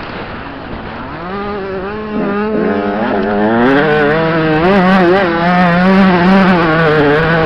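Motocross dirt bike engine revving up and down under throttle as it rides the track, its pitch rising and falling with each change of speed. It gets louder from about a second in and is loudest in the second half.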